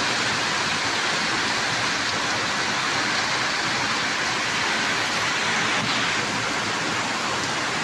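Heavy rain falling steadily, an even, unbroken hiss of downpour.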